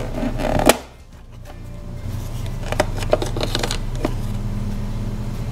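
Plastic toy oven handled: a sharp click as its door is pulled open, then a few light clicks and scrapes of a plastic spatula lifting a play-dough pie off the rack, over a low steady hum.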